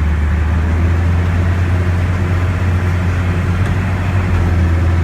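Case 5140 tractor's diesel engine running at a steady speed, a constant low drone.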